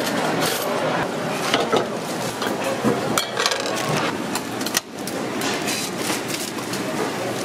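Busy ramen-stall kitchen sounds: background voices with repeated clinks and knocks of aluminium pots and utensils on the gas stove.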